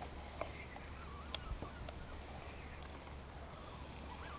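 Quiet open-air background with a few short, sharp light clicks from a baitcasting reel and rod being worked in the boat, and faint bird calls.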